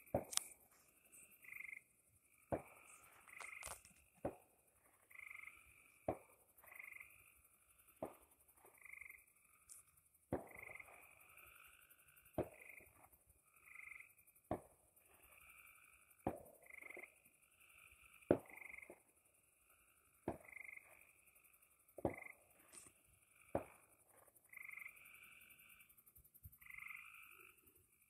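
A chorus of frogs calling at night, with repeated short trilled calls overlapping one another. Sharp clicks sound about every two seconds.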